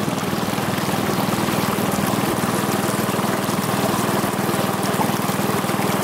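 Small wooden boat's motor running steadily with a fast, even pulse, with water rushing along the hull.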